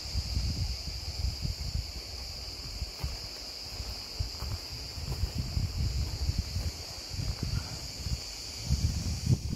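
A steady, high-pitched insect drone, unbroken throughout, with irregular low thuds and rumbling underneath.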